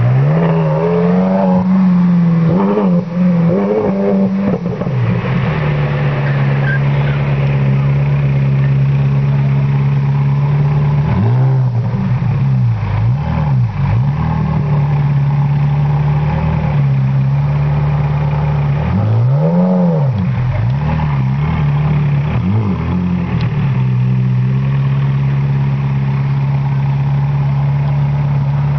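Engines running in slow traffic: a steady engine drone with several quick throttle blips that rise and fall, in the first few seconds, around twelve seconds in, and again around twenty seconds in.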